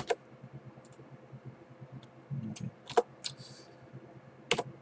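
A few sharp computer keyboard and mouse clicks, scattered: the loudest about three seconds in, and a quick double click near the end, over a faint steady hum.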